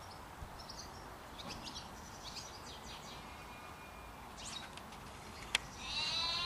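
Faint outdoor ambience with small birds chirping now and then and a single sharp click about five and a half seconds in. Near the end a sheep bleats once, a long wavering call that is the loudest sound.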